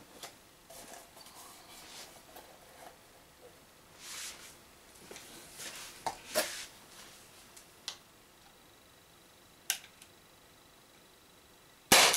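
Quiet handling clicks and knocks, then near the end a single loud, sharp shot from an Umarex HDP50 .50-calibre CO2 pistol firing a steel ball at a tin can, with a brief ringing after it.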